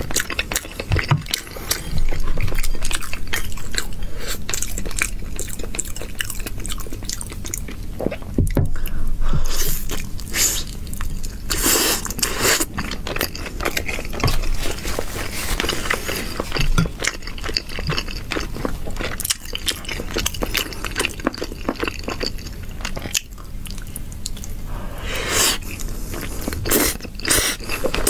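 Close-miked eating of noodles: wet chewing and mouth clicks, with a few longer, louder slurps.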